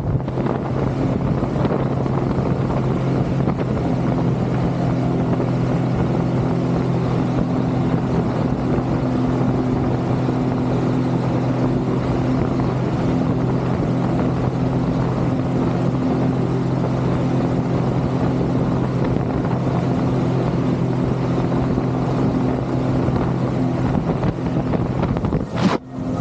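Sea-Doo jet ski running steadily at speed, a constant engine hum under the rush of spray and wind buffeting the microphone. The sound drops out briefly near the end.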